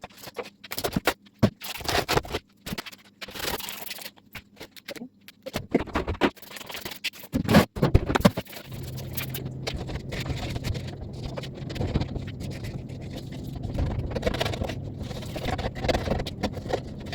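A scraper working over fridge surfaces, scraping and scratching with irregular knocks and clatters. About nine seconds in it gives way to a steady low hum with a hiss over it.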